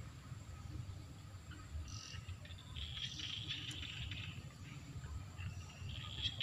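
Insects chirping in pulsed trills several times, over a steady low rumble.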